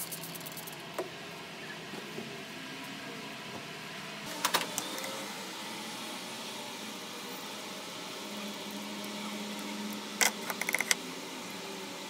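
Handling noises of a rusty metal hand clamp worked in gloved hands over a plastic bucket: a few short clicks and knocks about four seconds in, and a quick cluster of them around ten seconds in, over a steady faint hum.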